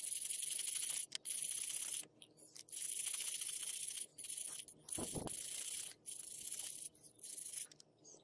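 Scrubbing of a small metal pipe-cutter wheel, a rasping, hissy sound that comes in several long strokes of a second or two with short breaks between them. There is a brief low bump about five seconds in.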